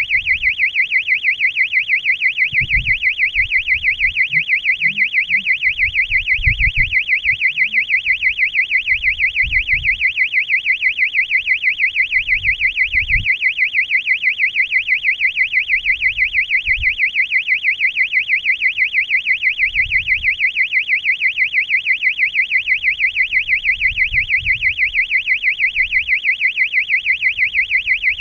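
Electronic alarm on a high-altitude balloon payload, sounding a steady high-pitched warbling tone that pulses evenly several times a second. Faint low thumps come and go under it.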